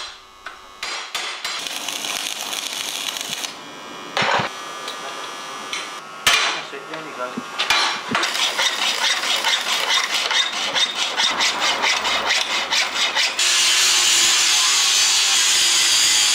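Metalworking on a stainless steel grille: two sharp hammer knocks about four and six seconds in, then a stretch of rhythmic scraping strokes. For the last few seconds an angle grinder cuts through a stainless steel bar with a steady, loud hiss, the loudest sound here.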